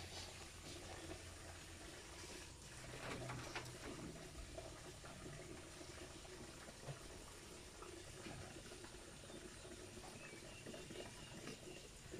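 Faint rustling of leafy greens with small crunching clicks as rabbits nibble and chew the leaves.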